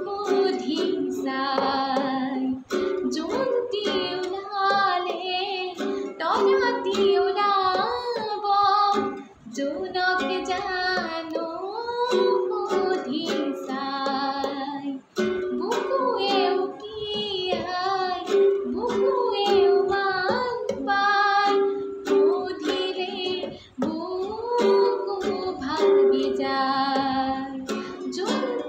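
A woman singing an Assamese song in a clear voice, holding notes with vibrato, over a strummed plucked-string accompaniment.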